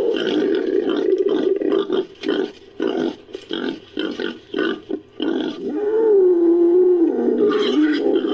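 Designed creature vocalisation made from entelodont sound effects, pig-like and growling. A held growl gives way to a run of short grunts about two a second, then a long, louder call that wavers up and down in pitch near the end.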